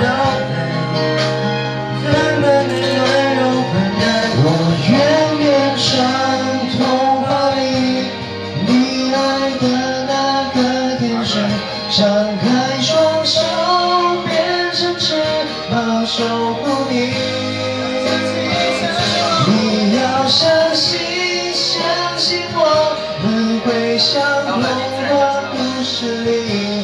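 Music: a pop song, a voice singing a melody over instrumental accompaniment.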